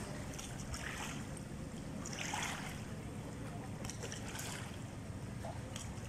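Steady wind rumble on the microphone over water lapping, with scattered small splashes.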